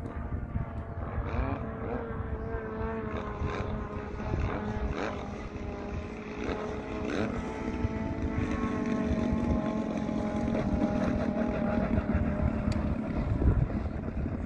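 Radio-controlled aerobatic plane's engine and propeller running as it comes in to land and rolls out on the runway, the engine note shifting in pitch. Gusty wind rumbles on the microphone underneath.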